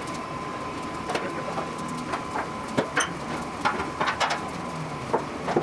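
Scattered light clicks and knocks, as of tools or parts being handled, with a faint steady tone that fades out about a second in.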